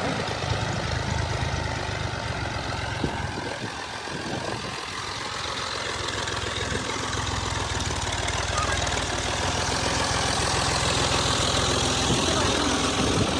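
Combine harvester running: its diesel engine and threshing machinery make a steady, dense drone that grows gradually louder through the second half.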